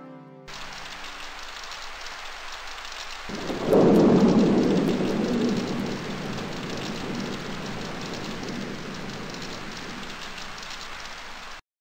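Steady rain with a rumble of thunder swelling about three seconds in and slowly fading. The rain cuts off abruptly near the end.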